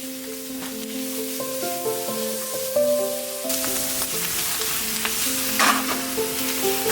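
Food sizzling and frying in a pan, the sizzle growing louder about halfway through, with a brief louder burst about a second before the end. Background music with steady melodic notes plays throughout.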